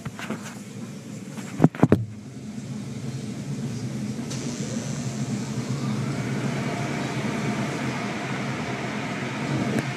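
Automatic car wash heard from inside the car: spinning cloth brushes slap and scrub across the body and glass and water sprays over it, over a steady machinery hum. Three sharp thumps come close together about two seconds in, then the scrubbing grows louder.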